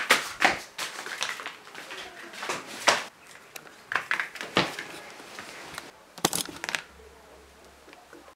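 A kitten scampering and playing on a wooden parquet floor: quick, irregular taps and knocks that stop about six and a half seconds in.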